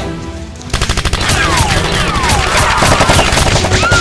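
Rapid automatic gunfire sound effect, a long burst of machine-gun shots starting about a second in, over background music.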